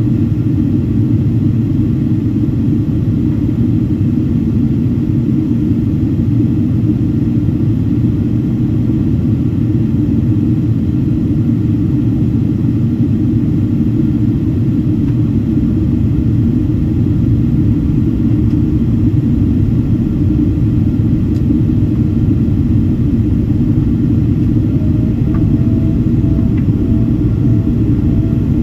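Steady low rumble of a Boeing 767-400ER's engines and airflow, heard inside the passenger cabin during descent. A faint pulsing tone comes in near the end.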